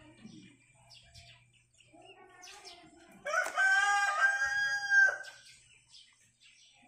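A rooster crowing once, a single call of about two seconds starting a little after three seconds in.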